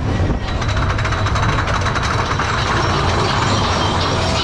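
Mine-train roller coaster cars running along the track at speed: a steady rumble and rattle of the wheels, with a thin high whine above it.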